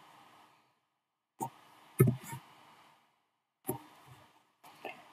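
Computer keyboard keystrokes: a few separate taps a second or so apart, the loudest about two seconds in.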